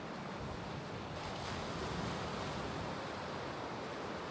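Small waves breaking and washing over a rocky shore: a steady rush of surf that swells a little about a second and a half in, with wind buffeting the microphone.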